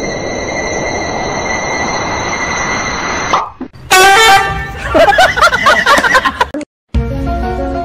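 Edited comedy soundtrack: a steady hiss with a high held tone, then about four seconds in a sudden, very loud horn-like blast as the cat leaps from the cucumber. A jumble of short pitched sounds and clicks follows, then a brief cutout and music.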